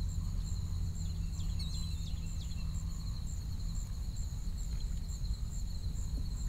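Outdoor morning ambience: a steady, high, slightly pulsing insect chorus over a low rumble, with a few short bird chirps about two seconds in.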